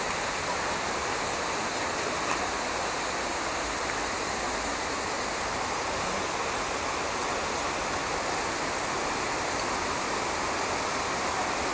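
Dudhsagar waterfall's water rushing steadily, an even, unbroken hiss of falling water.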